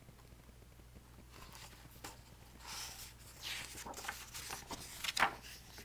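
Paper rustling as the pages of a picture book are handled and turned: a run of soft, irregular rustles starting about a second and a half in, the sharpest one near the end.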